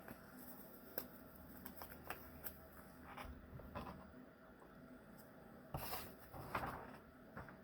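Faint handling of trading cards and their packaging: scattered light clicks and short rustles, with a longer rustle about six seconds in.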